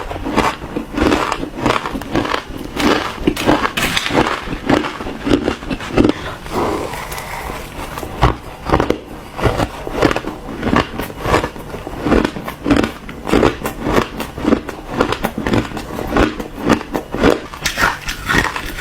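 Ice being bitten and chewed: a steady run of loud, crisp crunches, about two a second.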